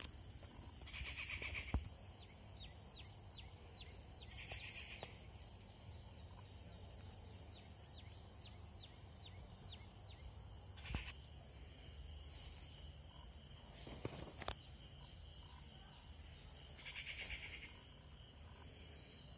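Faint garden ambience of birds and insects: a steady high insect drone, a run of quick falling bird chirps for several seconds, and louder buzzy calls near the start, about four seconds in and near the end. A few sharp clicks.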